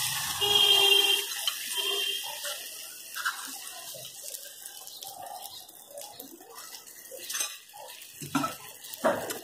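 Hot tempering oil with mustard seeds, urad dal and curry leaves poured from a small tadka pan onto wet beetroot chutney, sizzling loudly about half a second in and then dying down to a faint hiss.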